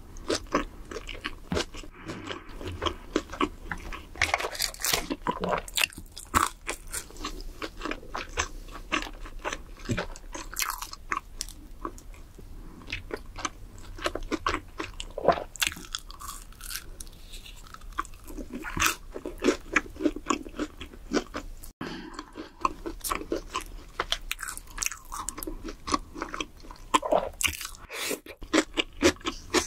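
Close-miked eating of crisp fried fast food: repeated crunchy bites and chewing, with sharp crackles of breading between softer wet mouth sounds.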